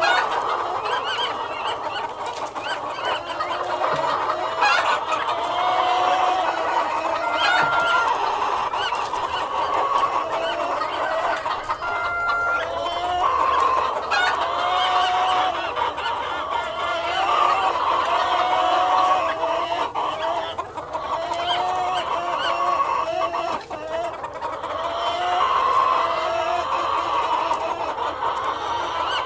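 A flock of hens clucking without a break, many short rising calls overlapping one another.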